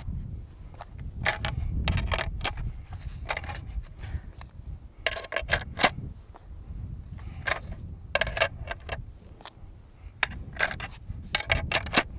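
Metallic clicks and clinks of a DP light machine gun's 47-round pan magazine being hand-loaded: the tab is pulled to turn the inner drum and 7.62x54R cartridges are dropped in one at a time. The clicks come irregularly, often several in quick succession.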